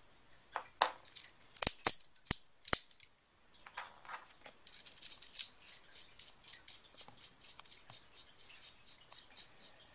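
Sharp metallic clicks of a Leatherman Crunch multitool being handled, about seven in the first three seconds, then lighter clicking and rustling.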